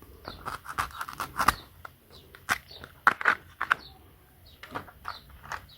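An irregular series of sharp clicks and knocks, with a small bird chirping repeatedly in the background.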